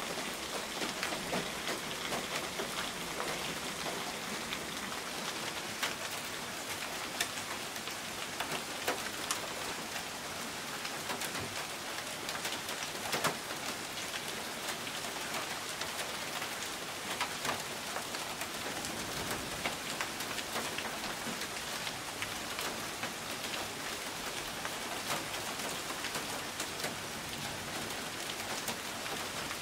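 Heavy rain and hail falling steadily, with frequent sharp clicks at irregular intervals as hailstones strike pavement and a car's hood.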